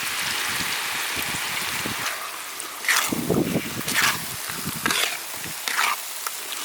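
Ingredients sizzling in a hot pan with a steady hiss. From about three seconds in, a spatula stirs and scrapes them in strokes roughly once a second.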